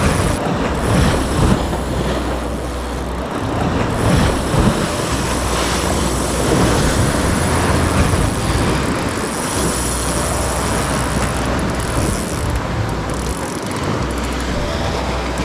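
Steady heavy wind rumble on the microphone mixed with sea surf washing against the rocks, a loud continuous noise with a deep low rumble.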